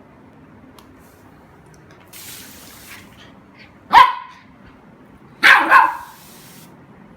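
Golden retriever puppy barking: one sharp bark, then a quick double bark about a second and a half later, with short hisses of spray between.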